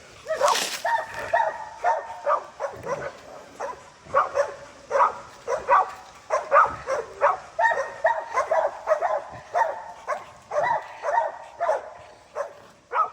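Pit bulls barking and yelping over and over in quick, irregular runs.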